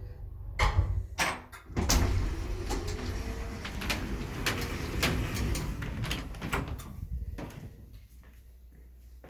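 A run of irregular knocks and clunks with rustling between them, like hard hardware being handled, easing off about seven seconds in to a quiet low hum.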